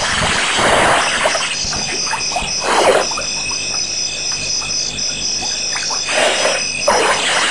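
African elephant drinking at a waterhole: short gushes and splashes of water as it draws water up its trunk and squirts it into its mouth, three times.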